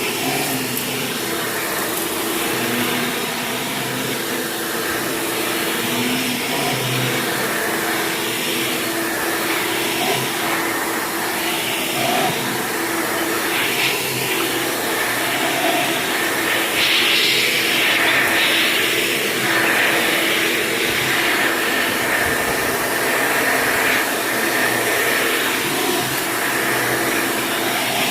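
Hoover commercial top-fill upright vacuum cleaner running steadily as it is pushed over a rug: a rushing of air with a steady motor hum, getting a little louder and brighter for a couple of seconds past the middle.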